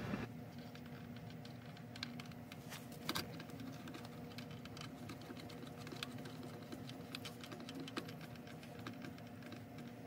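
Small irregular clicks and taps of hand work on the pump's electrical wiring connections, a few sharper ones in the first few seconds, over a steady low hum.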